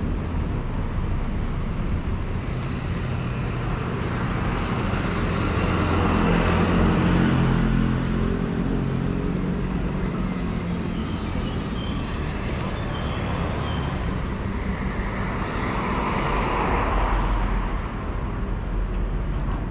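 Road traffic on a city street: vehicles passing along the road over a steady low rumble, with one engine passing close about a third of the way in and another swell of passing traffic near the end.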